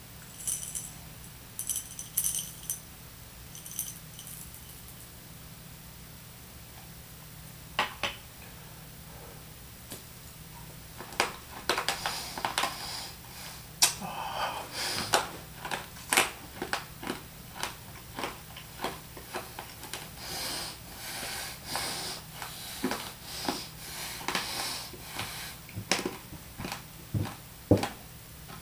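A handful of mints rattled and handled in the hands for the first few seconds, then crunched and chewed: a long run of sharp crunches starting about eleven seconds in.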